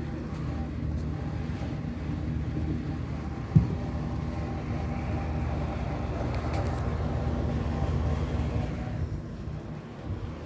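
Steady low motor hum with a single sharp knock about three and a half seconds in.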